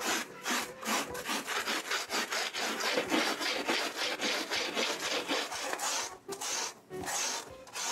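Small Surform rasp shaving pink extruded foam board in quick, even strokes, several a second. It is the final contouring of the scenery.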